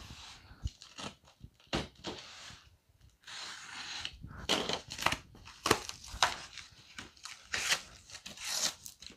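Box cutter slicing through packing tape on a cardboard carton, then the cardboard being torn and pulled open: a run of scraping and tearing strokes, louder from about three seconds in, with a few sharp knocks.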